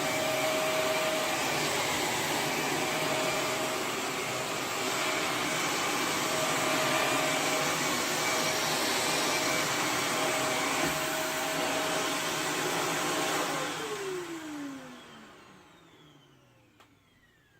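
Shark Navigator Lift-Away NV351 bagless upright vacuum running steadily with a constant whine, then switched off about three-quarters of the way through, its motor winding down in a falling pitch until it goes quiet.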